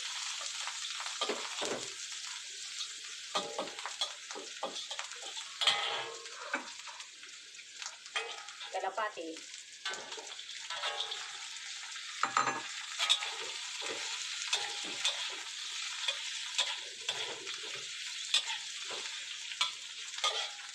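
Minced ginger and garlic sizzling in hot oil in a wok, with a steady hiss and a spatula scraping and clicking against the wok as it stirs. Partway through, whole blanched pigeons are tipped into the wok and the frying goes on.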